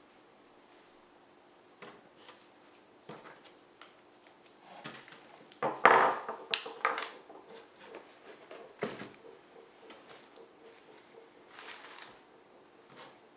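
Unboxing handling noises: scattered light clicks and knocks of the binoculars and their packaging being handled, with a louder rustle and clatter about six seconds in.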